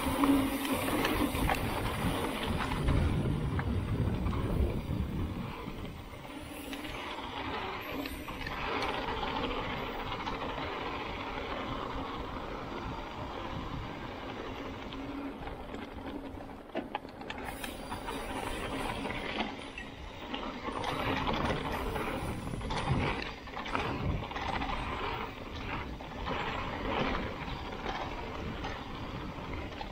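Mountain bike riding down a rocky enduro singletrack: tyres rumbling over rocks and roots, with the chain and frame rattling and clicking throughout.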